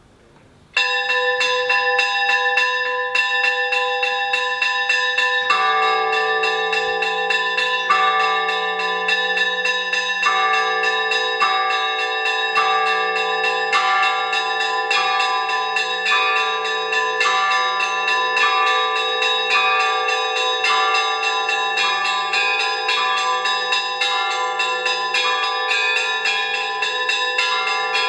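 Greek Orthodox monastery bells rung by hand in the tower. Smaller bells start suddenly about a second in with rapid, steady strokes that keep ringing into one another. About five seconds in, a deeper, larger bell joins beneath them in a regular beat of roughly one stroke a second.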